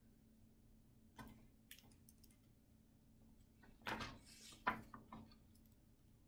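A hardcover picture book being handled and its page turned: a few faint clicks, then a brief paper rustle and a soft knock about four seconds in, over near silence.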